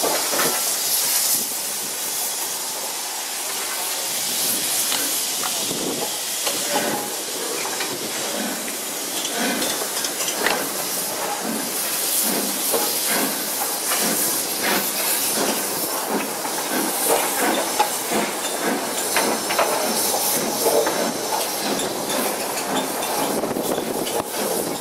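Steam train heard from an open carriage window: a steady hiss of steam and rushing air, with wheels clicking and clattering over the rail joints, more often and louder in the second half.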